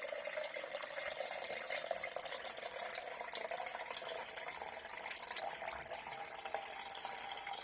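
Water pouring steadily out of a dehumidifier's collection tank and splashing, running on evenly without a break.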